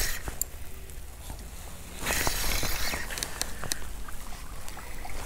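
Hooked jack pike splashing at the surface while it is played in, with the loudest splashing about two seconds in, then lighter splashes and clicks.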